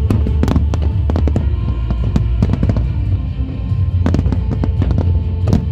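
Fireworks shells bursting and crackling in quick succession, many sharp bangs with dense clusters about half a second in, near four seconds and near the end, over loud music with a heavy steady bass.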